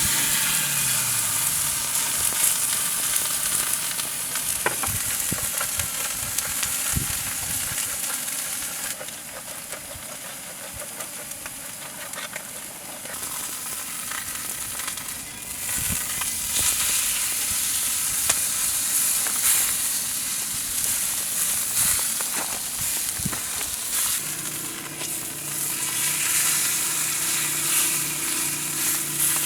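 Food sizzling as it fries in a hot pan, with occasional sharp clicks of a utensil. A low steady hum joins near the end.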